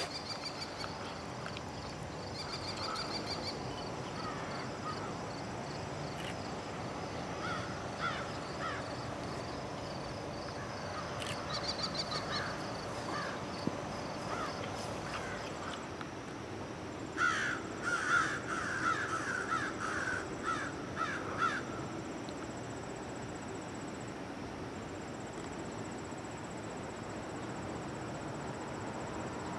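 Quiet outdoor ambience with crows cawing: scattered calls, then a run of about ten harsh caws starting about 17 seconds in and lasting some four seconds. A faint, steady high-pitched buzz runs underneath.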